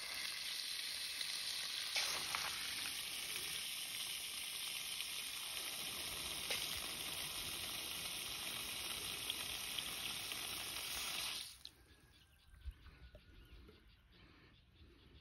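Water running hard from a spigot on a newly repaired PVC line: a steady hiss that is shut off suddenly about eleven seconds in.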